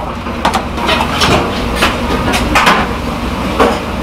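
Stainless steel bowls clinking and knocking against each other and the big mixing bowl as spicy noodles are tossed and portioned by hand, about a dozen irregular clanks over a steady low rumble.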